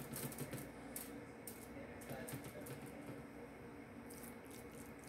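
Light, irregular crinkling and clicking as hands shape ground turkey patties and set them on an aluminium-foil-lined tray, over a faint steady hum.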